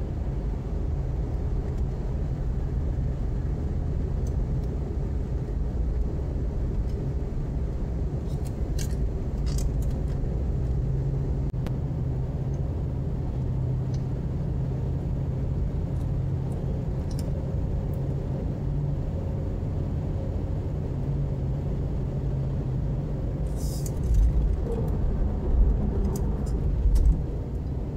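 Car interior while driving on a freeway: steady road and tyre rumble with engine hum, heard through a windshield-mounted dashcam. A few low thumps near the end.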